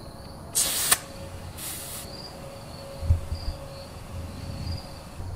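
Air chuck on a truck tire's valve stem hissing in two short bursts, a loud one about half a second in and a fainter one about a second later, as the tire is filled with air. Crickets chirp steadily underneath.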